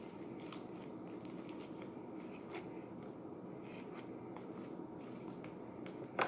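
Sticky glitter slime being kneaded and stretched by hand, giving faint scattered clicks and pops, with one louder snap near the end.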